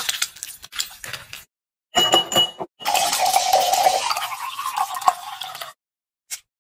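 A muddler knocking and pressing cherries against the bottom of a drinking glass, then a few bright glassy clinks. Lemon-lime soda is then poured from a glass bottle into the glass, a steady fizzing pour of about three seconds whose pitch rises slightly as the glass fills.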